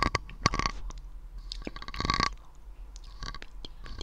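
Close-up ASMR mouth sounds made right at a condenser microphone: a series of short clicks, with a longer cluster of them about two seconds in.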